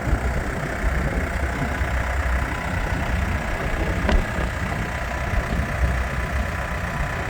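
Case 580 Super M backhoe's diesel engine idling steadily, with a single sharp click about four seconds in.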